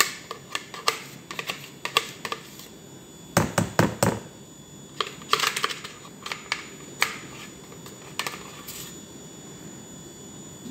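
A spoon scraping and tapping against a plastic blender jar as thick cake batter is scooped out, heard as a run of irregular sharp clicks and knocks. A cluster of heavier knocks comes about three and a half seconds in.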